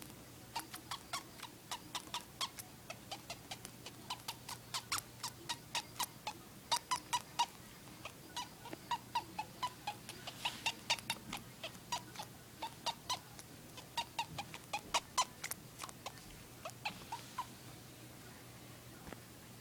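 Pet hamster sneezing over and over, in tiny sharp sneezes about two to three a second, in runs that die away near the end.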